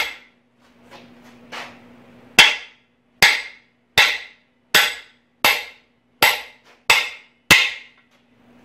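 Hammer driving a core plug into a Jeep 4.0L cast-iron engine block through a bearing-driver disc. A sharp blow at the start, two lighter taps, then eight evenly paced blows, a little over one a second, each with a short metallic ring.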